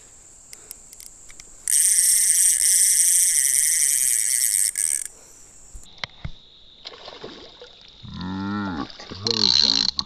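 Spinning reel's drag buzzing for about three seconds as a hooked smallmouth bass pulls line against it. Near the end a man's low, wavering voice is heard while the fish splashes at the surface.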